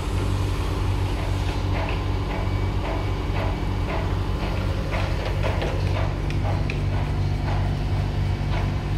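Machinery running with a steady low hum, while irregular metal clicks and knocks come from a hydraulic torque wrench being handled and seated onto a large structural bolt's nut. The clicks grow more frequent about halfway through.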